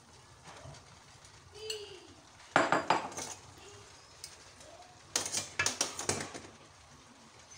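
Wooden spatula knocking and scraping against a frying pan in two short clattering bursts while rice vermicelli is pushed down into masala gravy.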